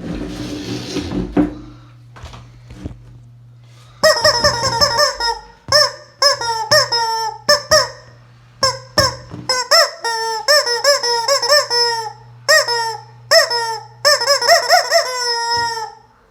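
Squeaky rubber chicken toy squeezed over and over, letting out loud, short squawks whose pitch swoops, many in quick succession, with a longer squawk near the end. A short rush of noise comes just before, near the start.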